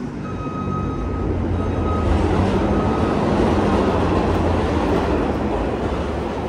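A vehicle passing close by in city street traffic: a low engine rumble and road noise swell to a peak about two to four seconds in and then ease off, with a steady high whine over the first few seconds.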